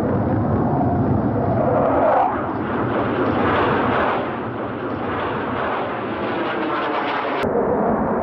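Sukhoi fighter jets' engines running at high power in flight, a steady dense rushing noise. It changes abruptly about seven seconds in as the sound cuts to another jet.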